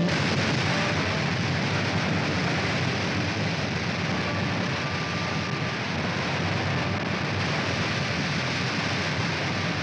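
Cartoon sound effect of a jet plane's engine in full-power flight: a loud, steady rushing noise that cuts in suddenly and holds unchanged.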